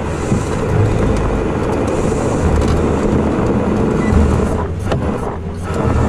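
Tow truck engine running steadily, its low hum swelling and easing every couple of seconds, with wind noise over it.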